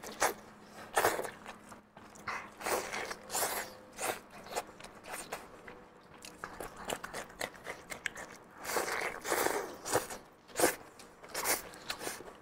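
Close-miked mouth sounds of a person biting into and chewing pork intestine stuffed with meat: irregular bites and chews, some strokes much louder than others.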